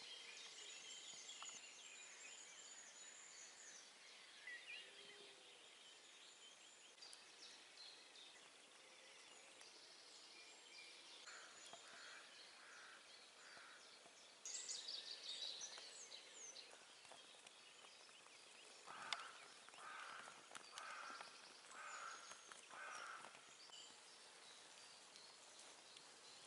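Faint birdsong in the early morning: several birds chirping and trilling, with a louder burst of song about halfway through and runs of repeated, evenly spaced calls a little before and after it.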